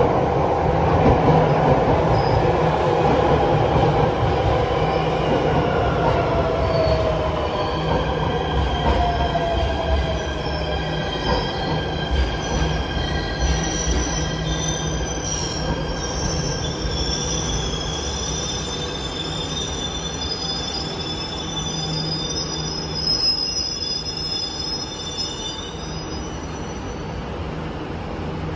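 MRT Jakarta electric train (Nippon Sharyo-built) pulling into the platform and braking to a stop, with rumble from the wheels on the track. Its motor whine falls in pitch as it slows. From about a third of the way in, several high-pitched squeals from the brakes and wheels take over as it creeps to a halt.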